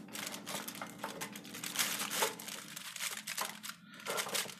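Aluminium foil wrapping a fish crinkling and rustling under a wire grill rack, with light irregular clicks and scrapes as the two racks are tied together with wire.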